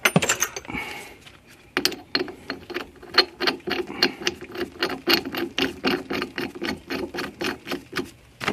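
Ratcheting tap handle clicking in a steady run of about five clicks a second, after a brief clatter of handling at the start. A tap is being turned deeper into the fitting port of a Honda H22 thermostat housing to cut its threads further.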